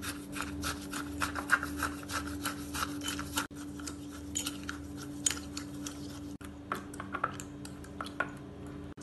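A metal fork muddling watermelon pieces with sugar, mint and lime in a glass: quick repeated crushing and scraping strokes against the glass, about four a second at first, then fewer and more scattered.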